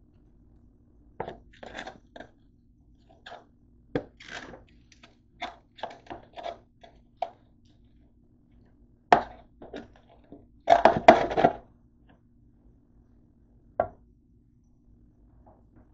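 An oven-mitted hand moving baked potato wedges around a metal sheet pan: irregular scrapes, clinks and crisp crunches. The loudest flurry comes about eleven seconds in.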